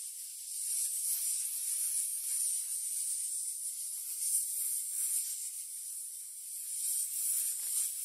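Snake hissing: a steady, high-pitched hiss that swells and eases slightly, with no pauses.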